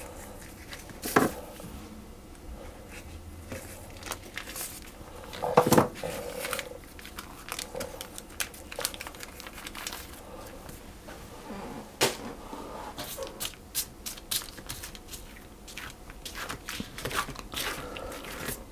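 Baking paper rustling and crinkling as strips of puff pastry are peeled off it, with scattered small clicks and a few sharper knocks on the worktop, the loudest about six seconds in.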